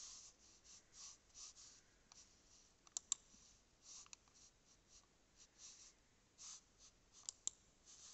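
Faint, intermittent rubbing and scuffing with a few sharp clicks, two close together about three seconds in and two more near the end: handling noise from the recording phone being held and covered by a hand.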